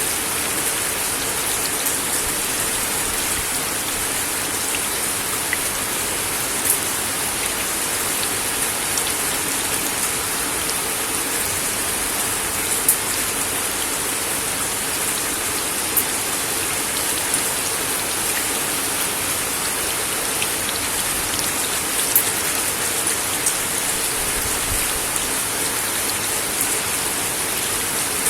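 Steady rain falling on a wooden deck: an even hiss of drops, with a few louder single drops ticking out of it now and then.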